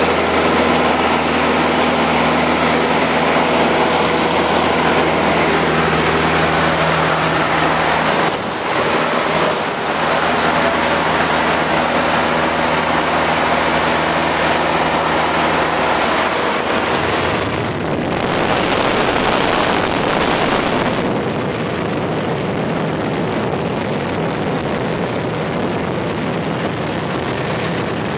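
Light single-engine Cessna's piston engine and propeller at climb power, heard from inside the cabin as a steady drone with wind rush. About 17 seconds in, the steady engine note fades and an even rushing wind sound takes over.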